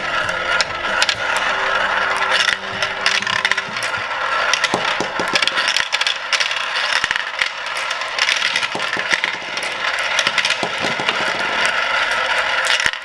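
Marbles rolling and clattering through a plastic marble run's tubes, rails and slides: a steady rattle full of rapid clicks.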